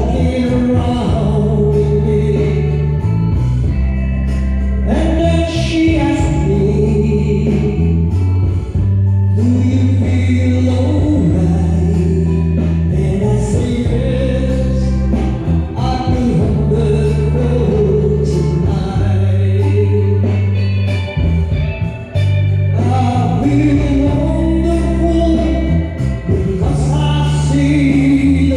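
A man singing a slow song into a microphone over a recorded backing track of sustained bass and chords.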